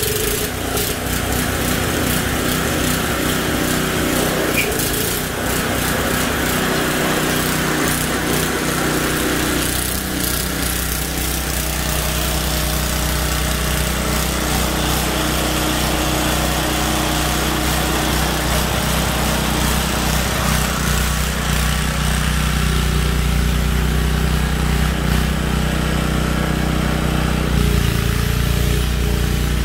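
Snow blower's small gasoline engine running steadily under load.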